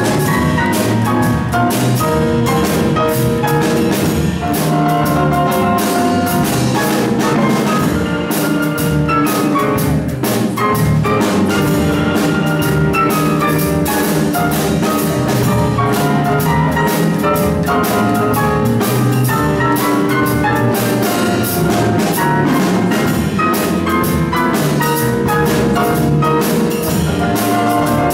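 Live jazz piano trio playing a blues improvisation: grand piano with upright double bass and a drum kit, the piano leading over steady bass and drums.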